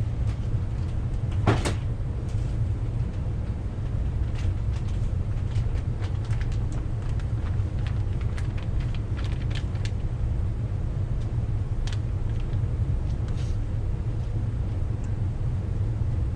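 Brake parts and tools being handled on a workbench: a knock about a second and a half in, then scattered light clicks and taps, over a steady low rumble.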